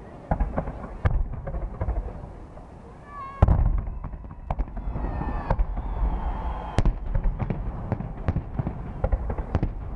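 Fireworks display: a rapid run of bangs and pops, with one heavy boom about three and a half seconds in.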